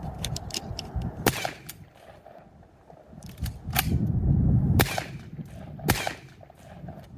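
Dickinson XXPR semi-auto 12-gauge shotgun firing several shots, about a second apart, each a sharp report with a short echo.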